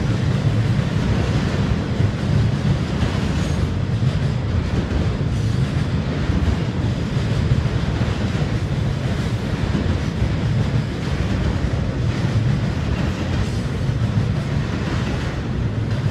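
Double-stack container freight train rolling steadily across a steel truss railroad bridge, with a continuous, even low rumble from its wheels and cars.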